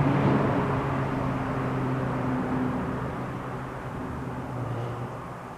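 A steady low hum over a rushing noise, slowly fading away.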